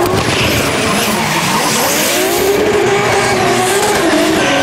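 Nissan 180SX drift car sliding sideways, its engine revving up and down through the drift over the steady skid of spinning, smoking rear tyres.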